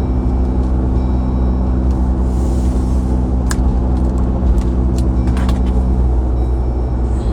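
Steady low rumble, like a vehicle heard from inside, with a humming tone that drops out about six seconds in and a few sharp clicks.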